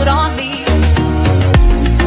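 Pop dance music with deep bass and a steady kick-drum beat.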